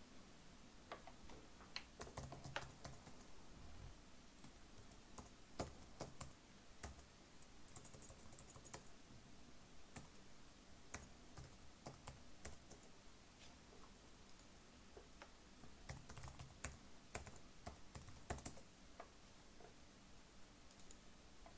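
Faint typing on a computer keyboard: scattered keystrokes in short runs as a login email address and password are typed in.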